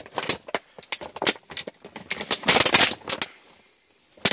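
Thin plastic motor-oil bottle being squeezed and handled, its walls crinkling and crackling in irregular bursts. The crackling is loudest about two and a half seconds in, then dies down before one more crackle at the very end.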